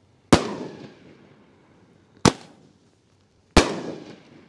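A 200 gram consumer firework cake firing its shots: three sharp, loud reports, the first and last each trailing off in a rolling echo.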